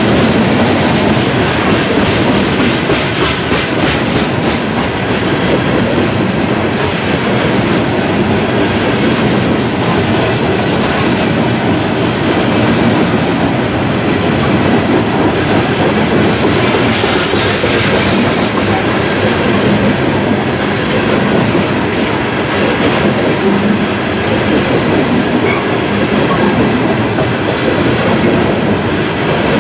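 A CSX freight train's cars rolling past, with the steady, loud noise of wheels running over the rails and no change for the whole stretch.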